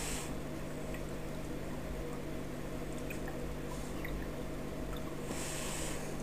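Aquarium filter running: a steady hum with water trickling and small drips, and a brief hiss of rushing water at the start and again about five seconds in.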